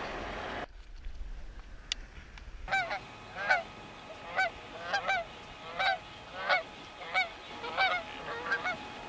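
Canada geese honking in flight. The honks come about one every two-thirds of a second from roughly three seconds in, then crowd together and overlap near the end.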